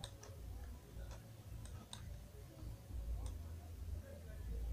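Faint, irregular clicks of a computer mouse, about seven or eight over a few seconds, over a steady low hum.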